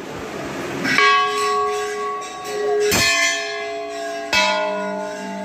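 Temple bells struck three times, each strike ringing on and slowly fading; the last strike is a deeper bell.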